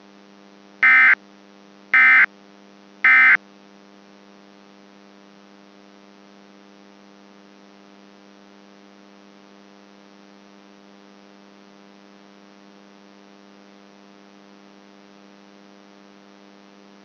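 Three short bursts of EAS SAME end-of-message data tones, about a second apart, over a steady electrical hum that carries on alone after them.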